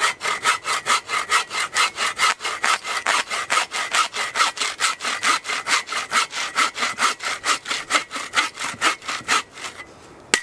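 Bow saw cutting through a thin dead log for firewood, in fast, even rasping strokes of about five a second. The strokes stop near the end as the cut goes through.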